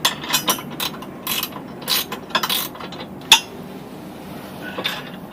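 Metal clinking and scraping as a steel trailer hitch and its bolts are worked into place on the frame rails: irregular clicks and short scrapes, with one sharp click about three seconds in, then quieter.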